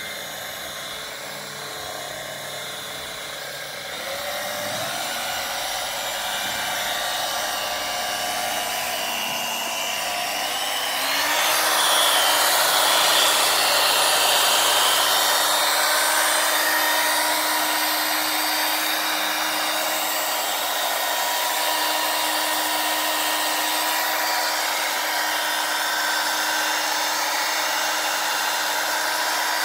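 Electric polishing machine running steadily, its pad spinning against car window glass coated in wet glass-polishing paste, with a hiss of the pad rubbing over the glass. About eleven seconds in the motor picks up speed and grows louder, then holds a steady whine.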